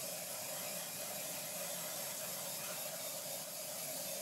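Iwata HP-BCS Eclipse double-action airbrush spraying thinned white paint from a bottle: a steady hiss of air and paint.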